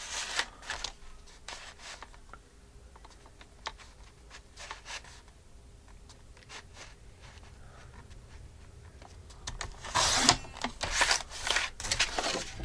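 Paper and card being handled and creased: soft scattered rustles and taps, then a louder spell of rustling and scraping about ten seconds in. A faint steady hum sits underneath most of it.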